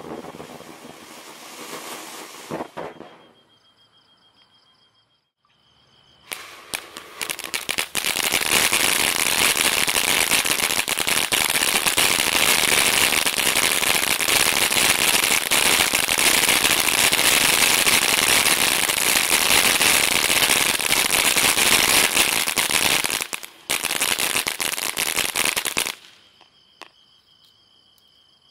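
Black Cat Neon Nights 200 g consumer firework fountains spraying glitter with a dense crackling hiss. One fountain fades out within the first three seconds, and after a short quiet gap the next is lit about six seconds in. It builds to a loud, steady crackle for close to twenty seconds, with a brief dropout near the end, then cuts off.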